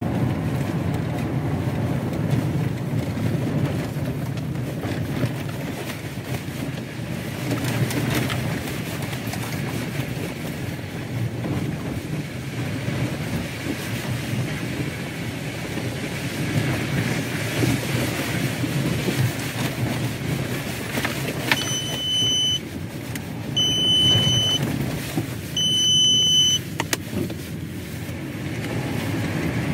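Car cabin noise while driving over a rough road: a steady low rumble of engine and tyres. Past the middle, three electronic beeps, each about a second long and about two seconds apart.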